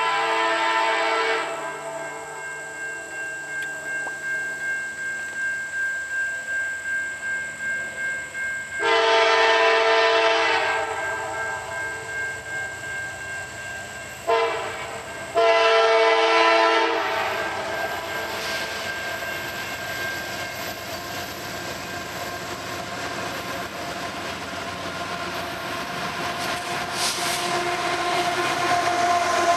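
GE AC4400CW locomotive air horn sounding a multi-note chord in the grade-crossing pattern: a first blast, then a long one, a brief one and a final long one that fades. Crossing-signal bells ring with an even pulse, and near the end the locomotive and autorack cars rumble past on the rails.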